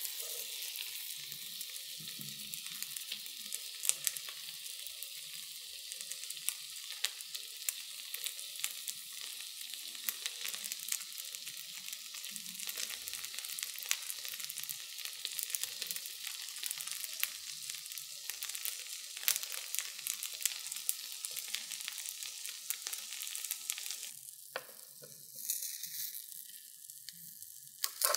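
Jelly pudding cubes sizzling and crackling on a hot waffle iron's plates: a dense hiss full of small pops. It drops quieter about 24 seconds in.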